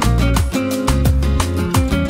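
Background music: an upbeat Latin dance track with a steady beat, bass and plucked strings.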